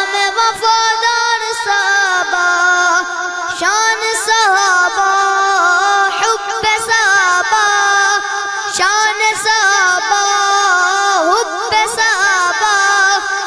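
A boy singing an Urdu devotional kalam into a microphone, in long held notes that waver and turn.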